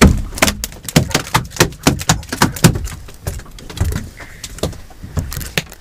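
Rapid, irregular knocks and slaps of a lively, freshly landed conger eel thrashing on the deck of a small boat, densest in the first few seconds and thinning out after.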